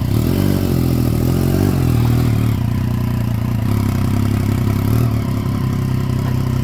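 600cc sport motorcycle engine running at low revs as the bike is clutched slowly up a loading ramp. The revs waver up and down in the first couple of seconds, then hold steady.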